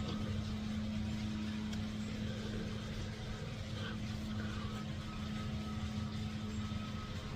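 A steady low mechanical hum with one constant pitch over a low rumble.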